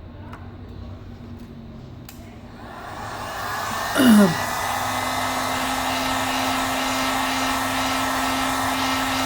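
Hot-air heat gun switched on, its blowing noise building up about two and a half seconds in and then running steadily with a hum, heating the screen to soften the glue under the glass. About four seconds in there is a brief, loud squeal falling in pitch.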